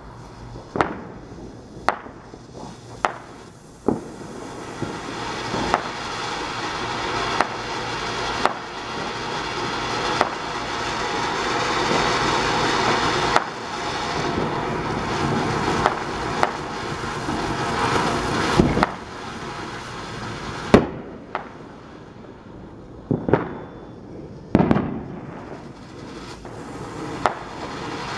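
American's Fountain, a World Class Fireworks ground fountain, burning: a rushing hiss of sparks that swells, dips and swells again in stages. Sharp cracks and pops are scattered through it, with a few loud ones near the end.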